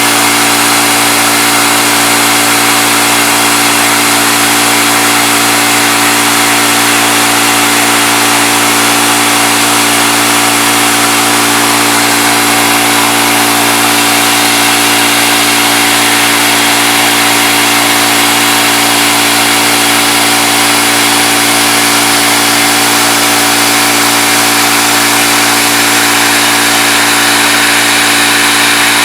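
CNC milling machine running while machining an aluminum part: a steady motor hum with several fixed tones over a loud, even hiss, unchanged throughout.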